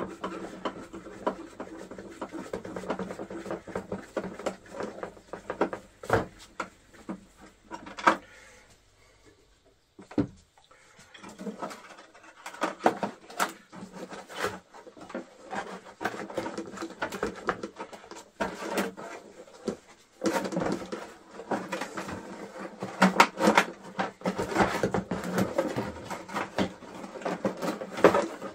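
Hands working the twin-motor drive unit out of an old model boat's hull: irregular clicks, knocks and rattles of small parts being handled, with a lull of about two seconds about a third of the way in.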